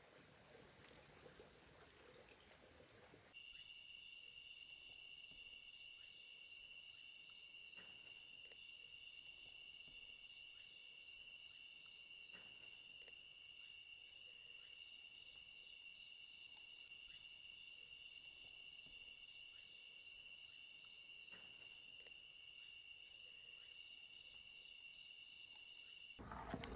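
Insects droning in a steady, even, high-pitched buzz. It starts about three seconds in and cuts off abruptly near the end.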